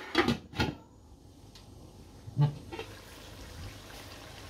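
Metal lid set down on a metal cooking pot, clanking twice in the first second, then a single knock about two and a half seconds in, followed by a faint steady hiss of the curry cooking.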